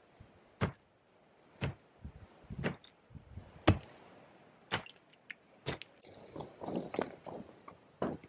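Sledgehammer striking broken floor rubble on a driveway, six separate blows about a second apart, breaking it up for fill. Near the end, a run of crunching and scraping as feet work over the loose soil and gravel.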